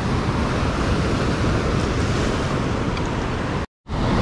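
Ocean surf washing and breaking over the rock ledge, mixed with wind buffeting the microphone, as a steady rush. The sound drops out completely for a moment near the end.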